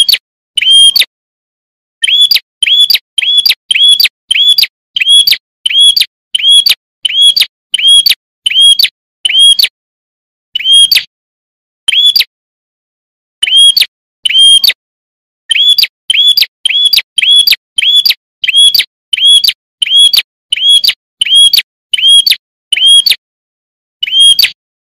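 A prenjak (prinia) calling: a loud, short chirp repeated about once or twice a second in long runs, broken by pauses of a second or two.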